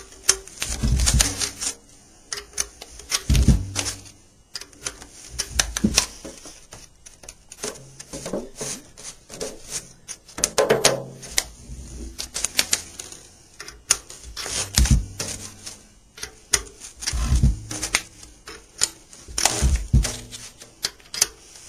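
Irregular metallic clicks and rattles from a banjo's tension hooks and bracket nuts as they are tightened down to draw a new skin head, with a few dull thumps as the banjo pot is handled and turned.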